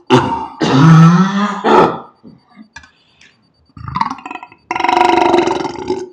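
A series of loud, deep human burps. The longest two each last about a second or more, one near the start and one near the end, with shorter burps and small gulping sounds between them.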